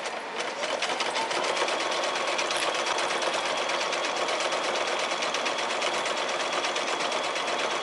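Domestic sewing machine stitching through a quilt block. Its motor speeds up over about the first second and a half, then runs steadily with fast, even needle strokes.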